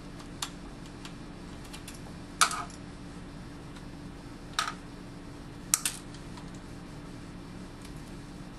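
Sharp light clicks of a Phillips screwdriver and small metal screws while the casing is unscrewed from a 2.5-inch laptop hard drive and the screws are set down on the laptop's underside. About five clicks, the loudest about two and a half seconds in and two close together near six seconds, over a low steady hum.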